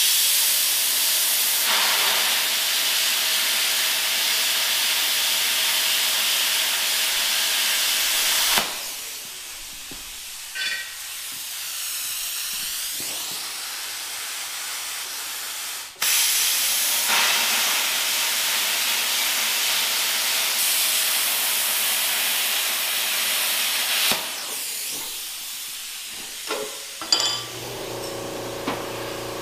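Loud, steady hissing from a hand-held metalworking tool used on a small steel part, in two runs of about eight seconds each with a quieter stretch between them. A few light knocks follow, and a low steady hum begins near the end.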